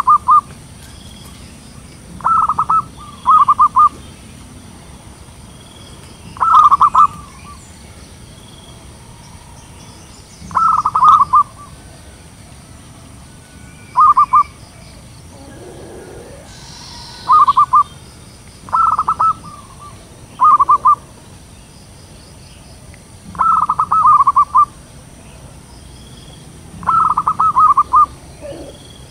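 Zebra dove (perkutut) cooing: short bouts of rapid, rolling notes, repeated every few seconds and sometimes in close pairs.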